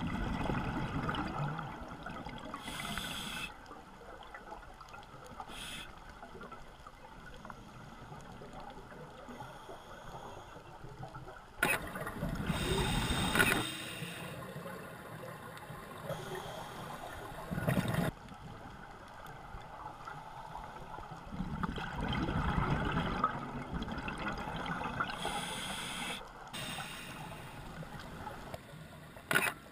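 Scuba regulator breathing heard underwater: bursts of exhaled bubbles every few seconds, the longest and loudest about twelve seconds in, over a low background of water noise.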